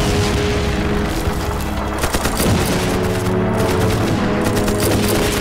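Dense volleys of rifle and machine-gun fire with shell explosions, a battle sound-effects track laid over background music with held notes.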